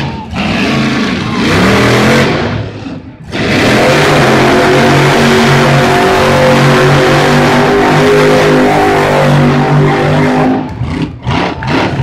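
A big racing engine revving up and down, then held at high revs as a loud, nearly steady drone for about seven seconds. It drops away about a second before the end.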